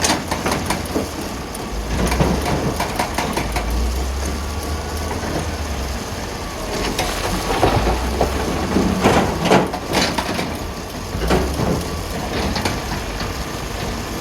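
Wheel loader's diesel engine running under a steady low rumble while rocks clatter and knock against steel, with a cluster of loud knocks between about seven and ten seconds in.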